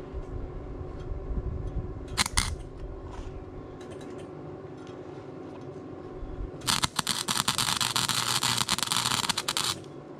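Harbor Freight flux-core wire welder striking an arc on a steel exhaust pipe to lay tack welds: a brief crackle about two seconds in, then about three seconds of loud, steady arc crackling that stops abruptly.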